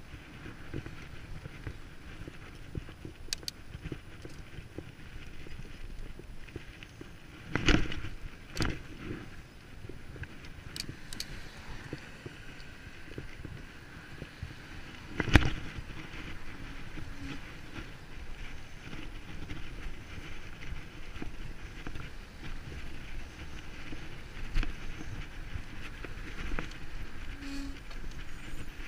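Bicycle being ridden over rough ground: a steady rumble and hiss of tyres and wind, with a few sharp knocks, the loudest about a quarter of the way and halfway through.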